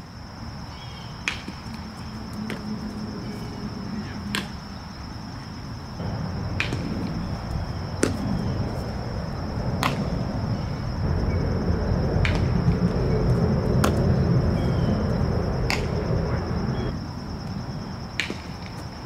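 Infield ground-ball practice: about ten sharp, distant cracks and pops, irregularly one to two seconds apart, from a bat hitting baseballs and balls landing in a leather glove. Underneath runs a low rumble that swells in the middle, with a steady high-pitched tone.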